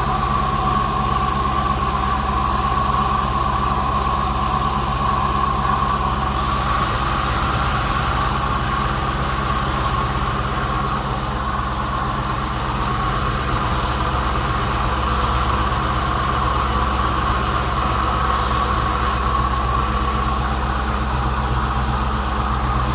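Chrysler 300 SRT's 6.4-litre Hemi V8 idling steadily, with a raspy grinding sound on top of the usual Hemi tick. The owner suspects a failing water pump or MDS lifters.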